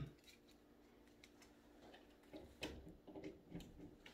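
Near silence, broken in the second half by a few faint clicks and taps of handling.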